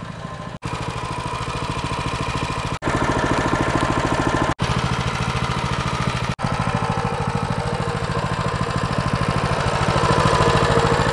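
Coleman CT200U mini bike's single-cylinder four-stroke engine running steadily, with rapid even exhaust pulses. The sound breaks off for an instant four times.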